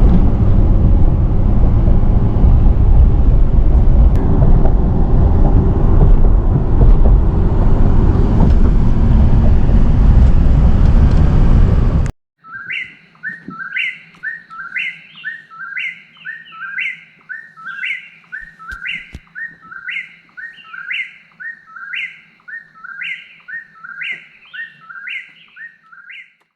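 Road and engine noise inside a moving car for about the first twelve seconds, then a sudden cut to a songbird repeating a quick chirped phrase over and over, about two phrases a second, over a faint steady hum.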